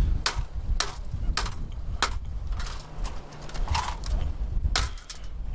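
A run of sharp clacks, about two a second, over wind buffeting the microphone.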